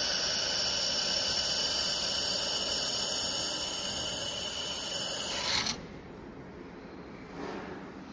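Handheld fiber laser welder running as it welds a seam in metal plate: a steady hiss with a high whine. It cuts off suddenly about five and a half seconds in.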